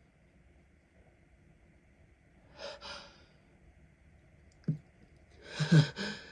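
Two quick breathy breaths about two and a half seconds in, a brief catch of the voice, then a stifled sneeze near the end, the loudest sound.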